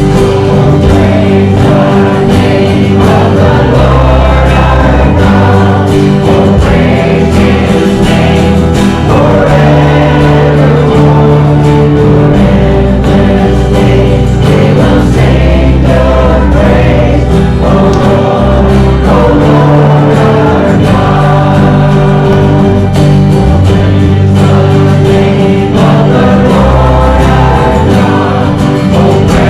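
Gospel-style Christian worship song: choir-like voices singing over a steady instrumental backing with bass.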